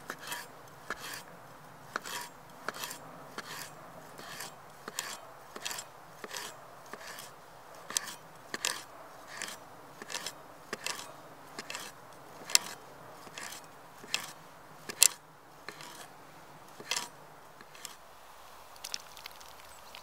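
A large knife slicing a smoked kiełbasa into rounds on a wooden cutting board: a steady run of sharp knocks as each stroke cuts through the sausage and strikes the board, about one to one and a half a second, thinning out near the end.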